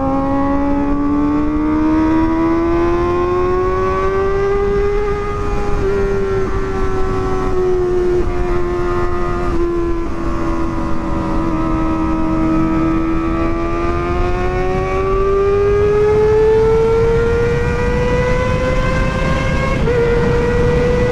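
Kawasaki ZX-25RR's 249 cc inline-four, fitted with a Pro Liner aftermarket exhaust, running under way at high revs. Its pitch climbs over the first few seconds, eases slightly through the middle, then climbs again, with brief breaks about six and twenty seconds in.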